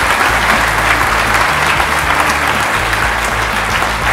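A large audience applauding, with music playing steady low notes underneath.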